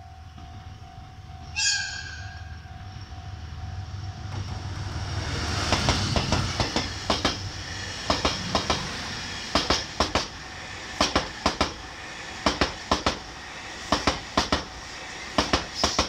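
Seven Stars in Kyushu cruise train passing a level crossing: a short blast of its horn about two seconds in over the rumble of the approaching diesel locomotive, then wheels knocking over the rail joints in groups of two or three, about one group every second and a half, as the cars go by. A steady level-crossing warning tone sounds until about four seconds in.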